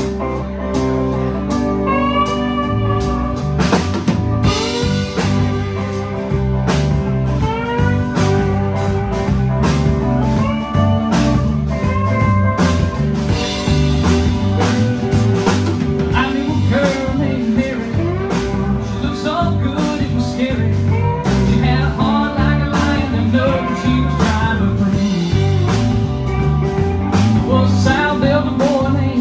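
Live band playing an original song: electric guitars, electric bass and drum kit, with a lead line that bends and slides in pitch over a steady bass and drum groove.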